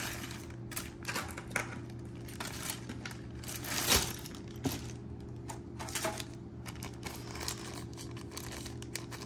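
Plastic zip-top bag crinkling as it is handled, with small jewelry pieces clicking against each other inside it; irregular light clicks, the sharpest about four seconds in, over a faint steady low hum.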